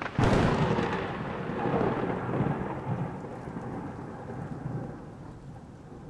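A deep boom that starts sharply about a quarter second in and rolls away as a long rumble, fading slowly over several seconds.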